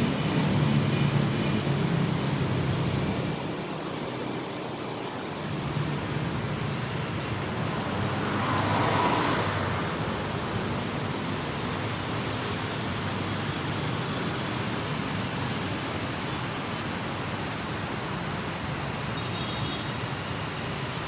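Street traffic: a vehicle's low engine hum fades out in the first few seconds, another vehicle passes about nine seconds in, and a steady traffic hum carries on.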